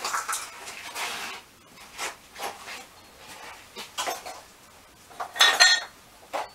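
Metal parts and tools being handled on a workbench: a string of irregular clinks, clatters and rubbing, with the loudest clank, ringing briefly, a little past the middle.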